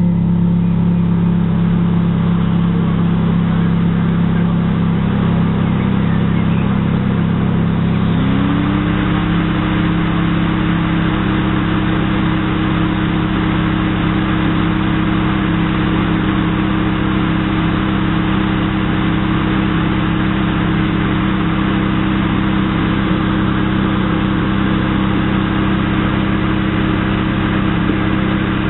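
Ferrari F430's 4.3-litre V8 idling steadily while the car stands still. About eight seconds in, a higher hum slides up in pitch and then holds.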